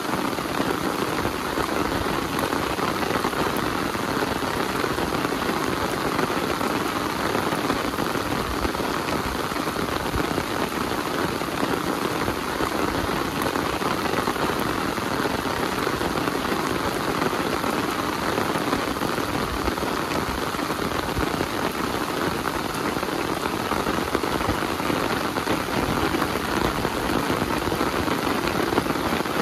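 Heavy rain falling steadily on surfaces, a dense, even hiss with no breaks.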